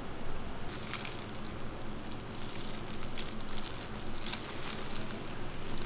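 Paper wrapper and thin plastic glove crinkling and rustling in short, scattered bursts as a gloved hand handles a stacked toast, over a steady low hum.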